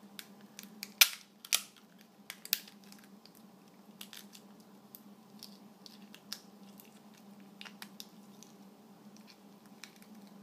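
Redclaw crayfish tail shell cracking and crackling as it is prised apart by hand and the flesh pulled out. A few sharp cracks come in the first few seconds, the loudest about a second in, followed by scattered small clicks.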